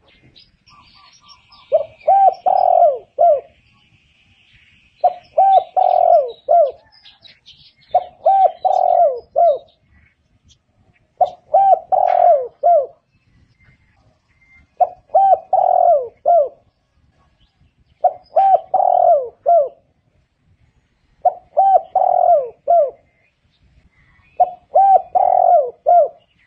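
Spotted dove cooing: eight repeated phrases about three seconds apart, each a quick run of a few coos. Faint high chirping from another bird in the first few seconds.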